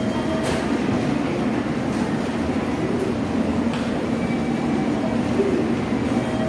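Steady low rumble of a railway station concourse, with a few faint footsteps on the tiled floor.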